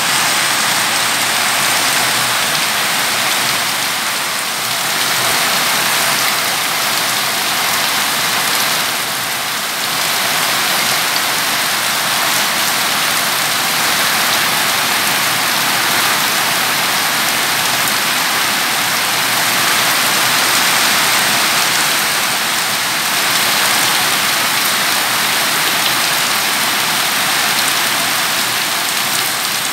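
Heavy rain pouring steadily onto banana and papaya leaves.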